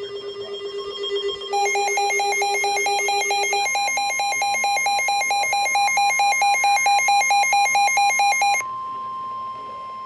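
Weather alert radios sounding for a special marine warning: a low steady tone that stops about three and a half seconds in, a fast electronic beeping alarm from about a second and a half in until near the end, and a higher steady tone, the NOAA Weather Radio warning alarm tone, taking over from about three and a half seconds in.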